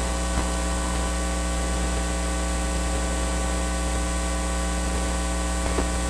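Steady electrical mains hum with hiss: a constant low drone with many fixed tones above it, unchanging throughout.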